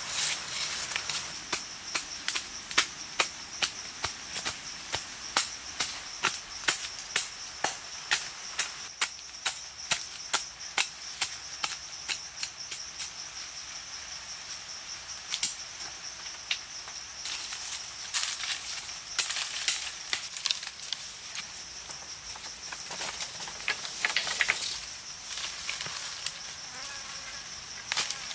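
A machete chopping into dry forest soil: sharp strikes at about two a second for the first dozen seconds, then scattered knocks and rustles. A steady high-pitched insect drone runs underneath.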